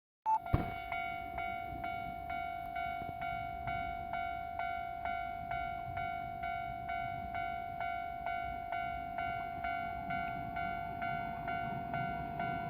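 Japanese railway level-crossing warning bell ringing in an even rhythm of about two strikes a second, starting a moment in. A low rumble grows near the end.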